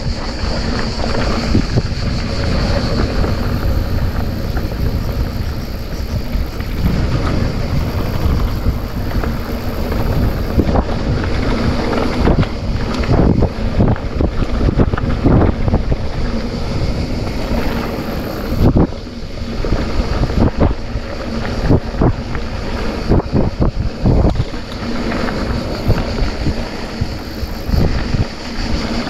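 Wind buffeting a mountain-bike camera's microphone at speed, over the rumble of a hardtail mountain bike's tyres on a dirt trail, with frequent short knocks and rattles as the bike runs over bumps.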